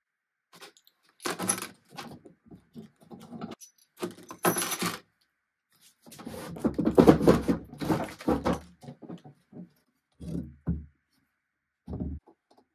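Loose metal drawer knobs clattering into a plastic tub, in two bursts, then a wooden dresser drawer pulled out with a longer sliding scrape, followed by a few knocks of the wood as the drawer is lifted.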